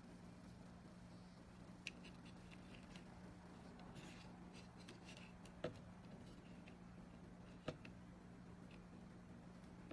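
Near silence with a faint steady hum, broken by light handling noise and a few small sharp clicks, about two seconds in, halfway through and near the end, as a small plastic-cased LCD gauge is picked up and turned in the hand.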